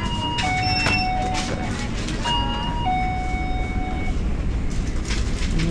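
A two-note chime, a high tone falling to a lower one, sounds twice about two seconds apart, over steady low road and wind rumble.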